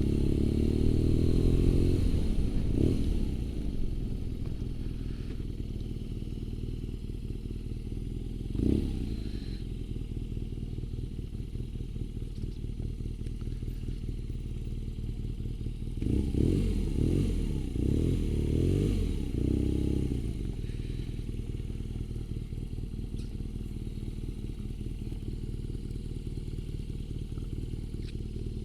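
BMW R nineT's 1170 cc boxer twin idling, with the revs dropping early on, a brief blip about a third of the way in, and a few quick rises and falls in revs a little past halfway.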